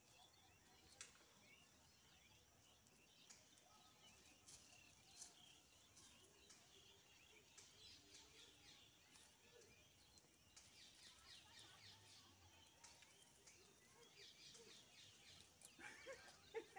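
Near silence: faint outdoor ambience with scattered faint high chirps of distant birds.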